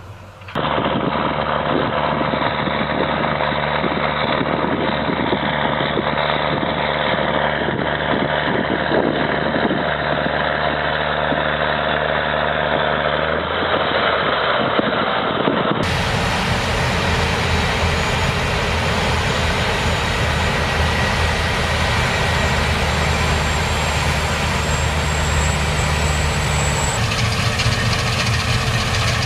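Heavy machine engines running steadily, in two different clips: the sound changes abruptly about halfway through to another engine.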